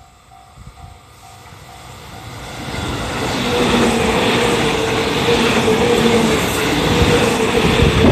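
Level crossing warning bell dinging about three times a second, then a JR Central 313 series electric train approaching and passing close by. Its noise builds from about two seconds in and stays loud, with the clatter of wheels over the rails.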